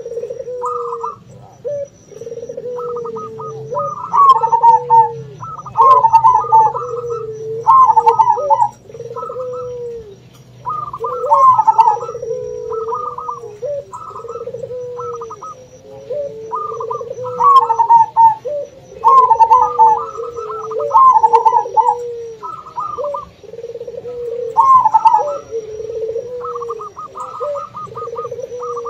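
Zebra doves (perkutut) singing their quick, staccato cooing phrases, overlapping with the lower, drawn-out coos of ring-necked doves (puter), phrase after phrase.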